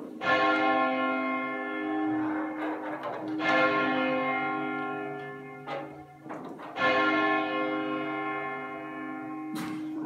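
Tower bells from a ring of twelve, rung full-circle with ropes for change ringing, striking in groups about every three seconds, each group hanging on in a long, slowly fading ring.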